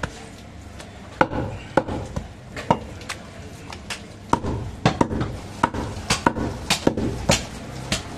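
Irregular sharp knocks of a butcher's knife and cleaver striking a wooden log chopping block while cutting goat ribs. The knocks come more often in the second half.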